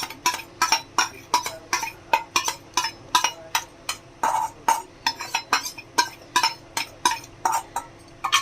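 Metal spatula clinking against a metal cooking pan over and over while stirring chicken with sauces, about three strikes a second, each with a short ring.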